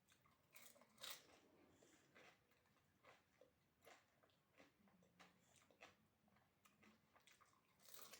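Crisp fuchka (pani puri) shells crunching as they are bitten and chewed, in a run of crackly crunches, with a sharp crunch about a second in and another near the end.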